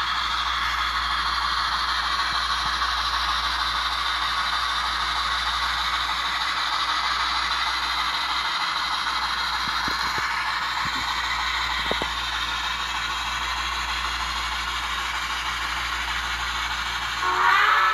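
Steam sound from a SoundTraxx Tsunami2 decoder in a model Shay locomotive, played through its small speaker: a steady hiss with a faint mechanical clatter. Near the end a steam whistle starts to blow.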